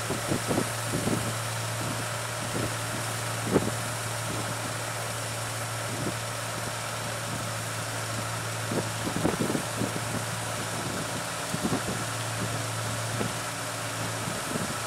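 A 1545 rice combine harvester running steadily while cutting paddy: an even engine drone over the hiss of the threshing machinery. Short gusts of wind thump on the microphone now and then.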